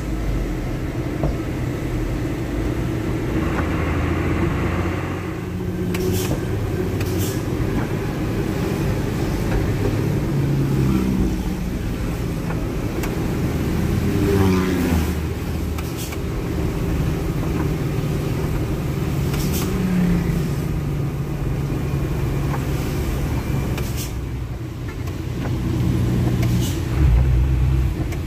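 Medium delivery truck's diesel engine running, heard from inside the cab. Its pitch rises and falls a few times as the engine speed changes, and there are a few sharp clicks.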